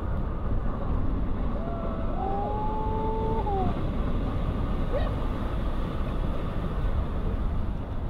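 Steady rushing noise of wind and surf with a deep rumble underneath, heard from a boat. About two seconds in, a spectator lets out one long held whoop lasting over a second, and a short rising yelp follows about five seconds in.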